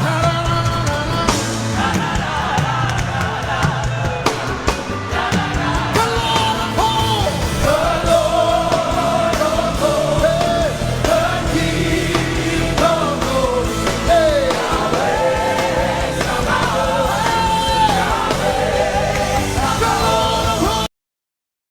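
Live worship music: voices singing over a band with a steady beat. It cuts off abruptly near the end.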